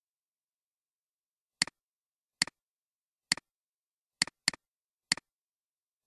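Computer mouse button clicking six times at irregular intervals, each a short sharp press-and-release click, with two coming close together about two-thirds of the way through.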